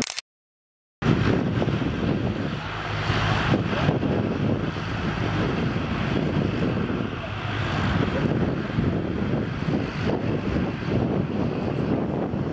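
Antonov An-225 Mriya's six D-18T turbofan engines running on the ground, a steady jet rumble and hiss. The sound drops out completely for under a second right at the start.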